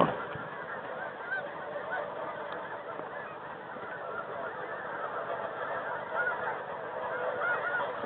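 Many snow geese calling at once: a dense, continuous chorus of overlapping high honks.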